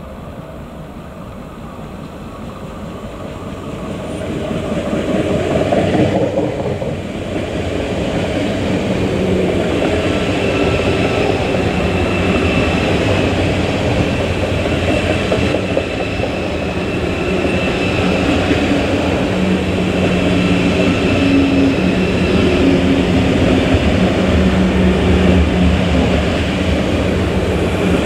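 A train rolling slowly through a station, growing louder over the first six seconds and then running steadily loud, with a low hum and a fainter high whine.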